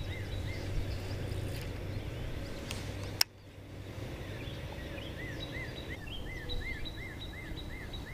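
A bird singing a string of short, arched chirps, about three a second. It sings briefly at the start and again through the last three seconds, over steady low background noise. A single sharp click about three seconds in is the loudest sound.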